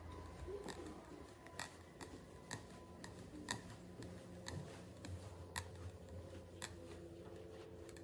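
Faint, sharp clicks at irregular intervals, roughly one a second, over a low steady hum.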